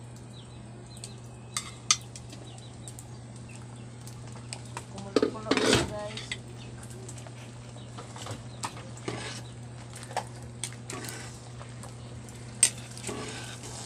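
A metal ladle and lid clink and scrape against a metal cooking pot, with a few sharp clanks, over a steady low hum. About five seconds in comes a brief louder pitched call.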